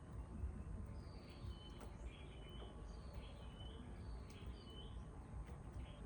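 A bird calling repeatedly, a short high two-note call about once a second, over a low rumble of background noise.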